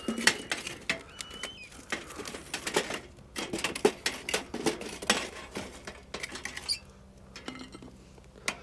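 Hot coals being scooped from the campfire and tipped onto a cooking pot's lid: irregular clinks, scrapes and crackles that thin out near the end.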